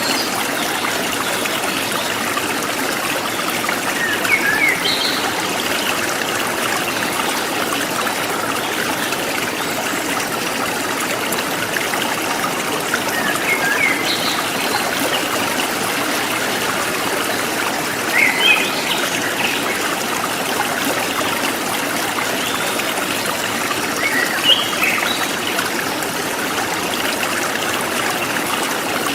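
Forest stream flowing steadily over rocks, with short bird chirps heard now and then, about half a dozen times.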